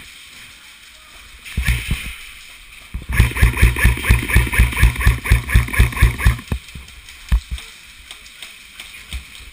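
Airsoft rifle firing close by: a brief burst, then a rapid string of about fifteen sharp shots at about five a second that stops abruptly, followed by a couple of single knocks.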